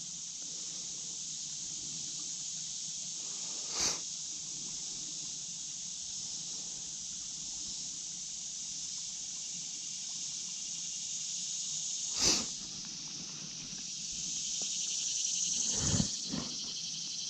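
Steady high-pitched chirring of crickets and other insects, swelling a little near the end, with a few short knocks about four seconds in, about twelve seconds in and near the end.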